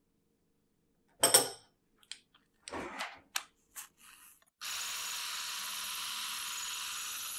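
A sharp clatter, then a few lighter knocks and clicks. About four and a half seconds in, an electric mixer starts and runs at a steady speed.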